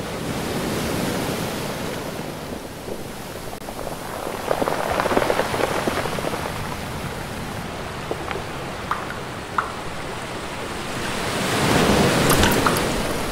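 Sea waves washing in: a rushing noise that swells twice, about a third of the way in and again near the end, with a few sharp clicks and splashes between the swells.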